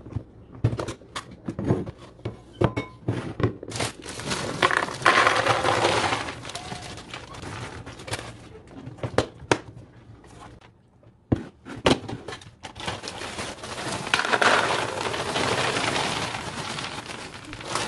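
Dry cereal poured from a plastic bag into a plastic cereal dispenser, in two pours of a few seconds each, starting about 4 s and 12 s in, with the bag crinkling. Sharp clicks and taps from handling the container and lid come before each pour.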